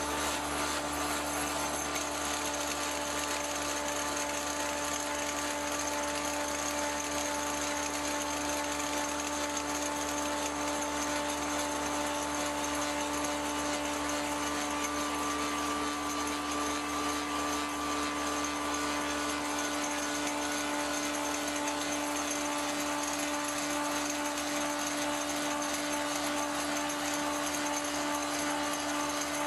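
1885 Ober copying lathe running and machining an axe handle blank: an even, unbroken machine whir with a steady hum, with no clear knocks or changes.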